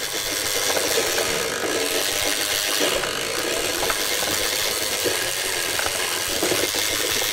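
Road Rippers Turbo Rig toy semi truck's electronic turbo engine sound effect, a steady rattling buzz from its small speaker, distorted by low batteries.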